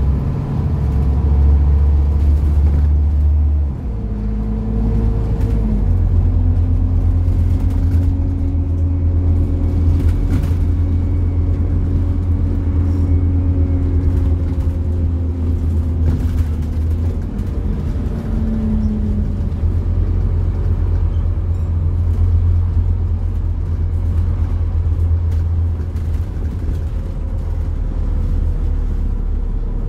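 Scania-chassis Enviro 400 double-decker bus under way, heard from inside the passenger saloon: a steady low engine drone that steps in pitch and strength a few times, with a fainter whine that rises and falls.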